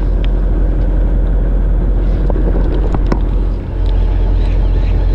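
Fishing boat's engine running steadily with a deep rumble, with a few light clicks from the angler handling his baitcasting reel.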